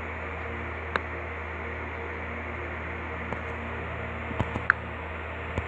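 Steady low electronic hum over hiss, presented as the sound of a planet, with a few short clicks about a second in and several more near the end.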